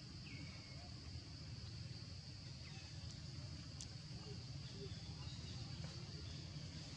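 Forest ambience: a steady high-pitched insect drone over a low rumble, with a few faint bird chirps and one sharp click nearly four seconds in.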